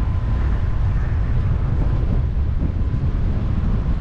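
Steady low rumble of wind buffeting the microphone, with no speech.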